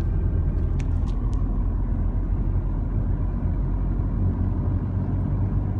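Road and engine noise heard inside a moving car: a steady low rumble, with a few faint ticks about a second in.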